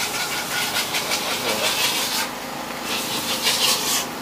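Fast rasping, scraping strokes in bursts of a second or two, with short pauses between them.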